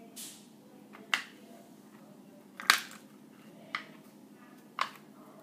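Small plastic play-dough tools and pieces clicking and tapping on a hard surface while being handled: five short, sharp taps at irregular intervals about a second apart, the loudest a little before halfway.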